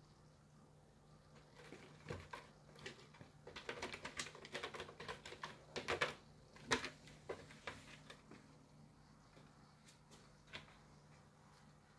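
Cat claws scratching and catching on the sisal rope of a scratching post as a cat climbs and swats at it: a rapid run of scratchy clicks starting about two seconds in, densest around the middle, with one last click near the end.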